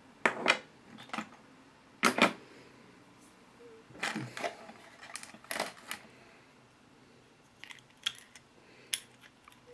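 Scattered clicks and light knocks of a small plastic RC car axle housing and differential being handled and fitted together by hand.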